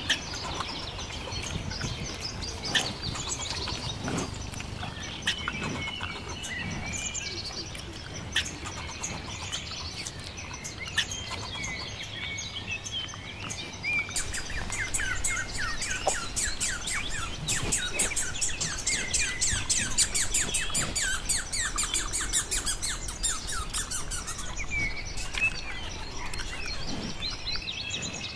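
Squirrel chattering: scattered high chirps with a few sharp clicks, then from about halfway through a long, dense run of quick chirps, several a second.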